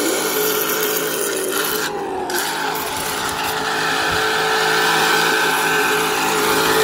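RC burnout car spinning its rear tyres against the ground, a harsh continuous rasping scrub over a steady motor whine, which cuts in abruptly just before and holds on.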